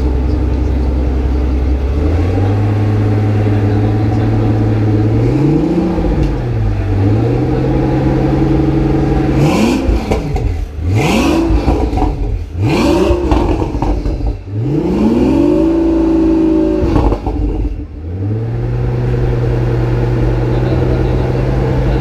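Pagani Huayra BC's twin-turbo V12 idling, its idle stepping up after a couple of seconds, then blipped while standing: one short rev, a run of quick sharp revs about halfway, and a longer rev held for a moment before it drops back to a steady idle.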